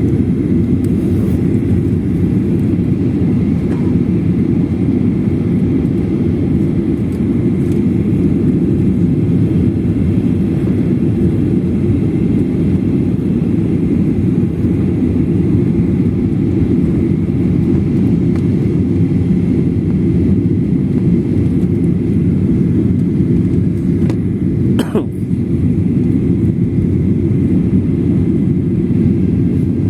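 Steady cabin noise of a Boeing 737-800 descending on approach: engine and airflow noise heard from inside the passenger cabin. A brief click comes about five seconds before the end.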